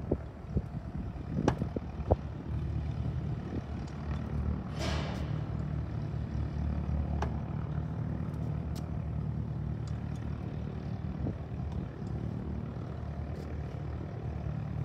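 A couple of sharp knocks in the first two seconds as a Cessna 150's nose gear oleo strut, filled with air only, is pushed down and slams to full travel with no oil to damp it. After that a steady low engine drone, as of an engine idling, with a brief hiss about five seconds in.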